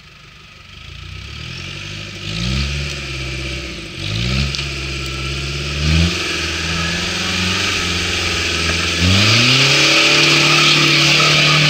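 Toyota Hilux pickup's engine revving hard under load as it climbs a muddy slope, the revs rising in four pulls, each higher and held longer, the last held high near the end. A loud rushing hiss builds under the engine over the last few seconds.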